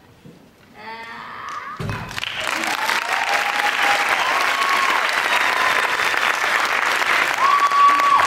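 An audience bursts into applause about two seconds in, just as the music fades out, with high held cheers over the clapping; the applause marks the end of a dance performance.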